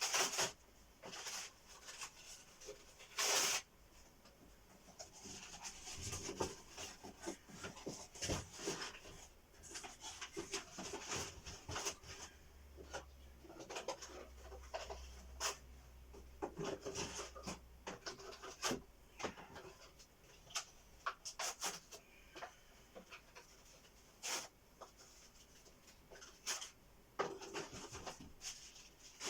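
Hands handling XLR cables: irregular rubbing and rustling with scattered sharp clicks and knocks. The loudest knocks come just after the start and about three and a half seconds in.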